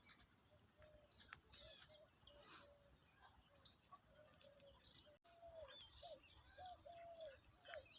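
Faint jungle bird calls: one bird repeating a short, low note a few times a second, with scattered higher chirps from other birds.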